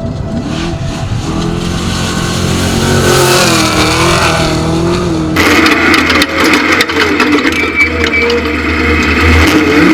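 Off-road race truck engine revving, its pitch rising and falling as it grows louder. About halfway through, the sound switches suddenly to a louder, harsher engine note with rattling clicks.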